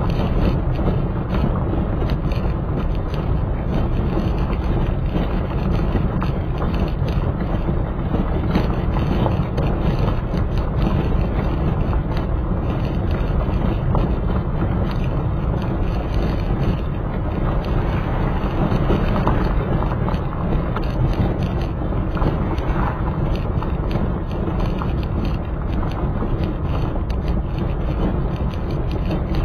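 Steady rumble of a moving vehicle on the road: engine and tyre noise, loudest in the low end, with some wind.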